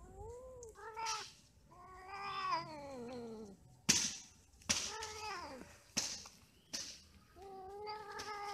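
Cats yowling and caterwauling while mating: about five drawn-out calls that rise and fall in pitch, one of them a long wail sliding downward. Several sharp clicks fall between the later calls, the loudest about four seconds in.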